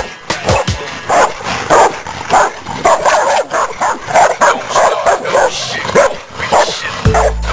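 Dogs fighting, a bulldog against two Rottweilers: rapid, overlapping barks, yips and whimpers. Near the end, music with a deep bass comes in.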